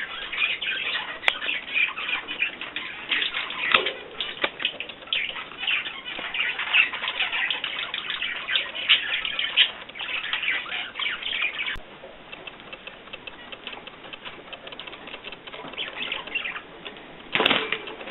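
Small cage birds chirping and chattering in rapid short calls, busy for about twelve seconds and then sparser, with a brief louder burst near the end.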